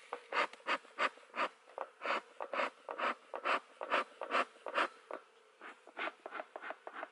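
Bellows bee smoker being pumped in quick whooshing puffs, about two to three a second, with a short pause about five seconds in. Under it, the steady hum of the Russian honeybees, which are agitated.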